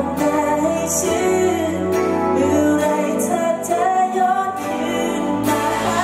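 Live band performing a Thai pop song: a male lead singer sings into a handheld microphone over the band's accompaniment.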